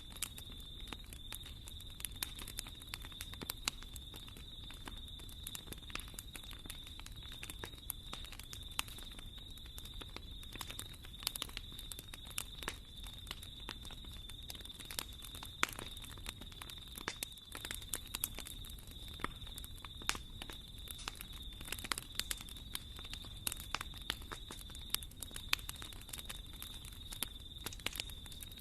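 Wood fire burning in a fireplace, crackling steadily with frequent sharp pops over a low rumble.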